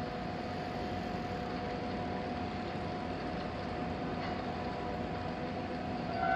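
Steady mechanical background noise of vehicles, with a faint continuous high tone running through it.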